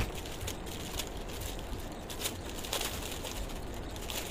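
Garments being handled: soft, irregular rustling and light clicks, with a single sharper knock at the very start, over a steady background hum.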